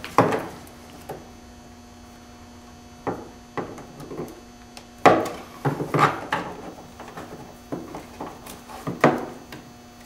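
Irregular plastic knocks, clicks and rubbing as a golf cart tail light is plugged into its wiring harness and pressed into the rear body panel, with the loudest knocks about halfway through and another near the end. A faint steady hum sits underneath.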